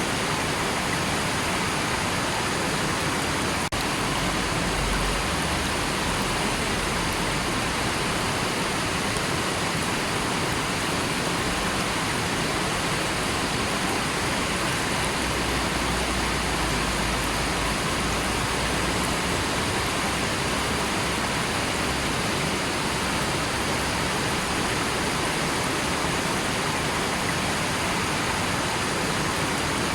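River water flowing, a steady, unbroken sound of running water.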